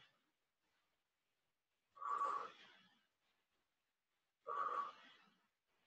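A woman's hard, out-of-breath exhalations from exertion: two short puffs of breath about two and a half seconds apart.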